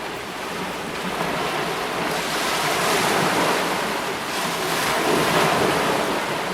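Ocean surf: waves washing in, swelling twice.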